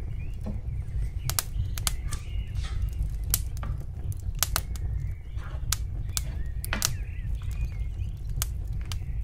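Scattered sharp clicks and taps of a plate, cake board and spatula being handled while a cake is assembled, over a low steady hum.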